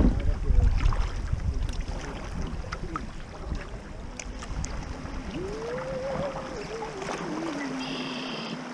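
Kayak on a shallow river: water rippling and lapping around the hull, with wind buffeting the microphone for the first second or so. A faint gliding tone rises and falls in the second half, and a short high chirp comes near the end.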